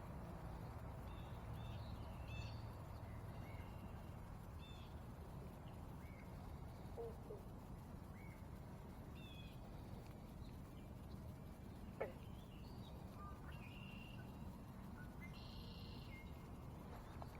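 Faint birdsong: scattered short chirps and calls from several birds, with one longer call near the end, over a low steady rumble. A single sharp click comes about twelve seconds in.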